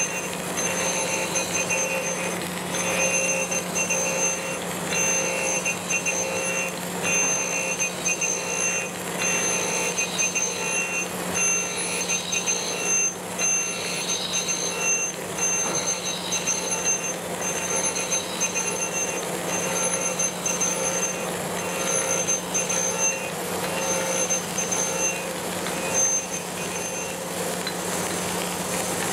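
Reid surface grinder taking a heavy roughing cut on a metal plate. The spindle motor hums steadily under the grinding wheel's ringing screech, which comes and goes as the table carries the work back and forth under the wheel.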